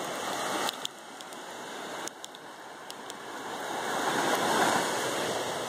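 Small waves washing up onto the beach, the rush of water swelling to a peak about four to five seconds in, with a few faint clicks.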